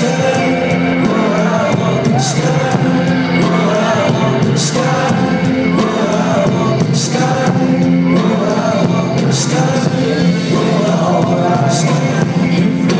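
Live band playing in a large hall: sung vocals over sustained chords, with a bright crash-like hit about every two and a half seconds and some crowd noise.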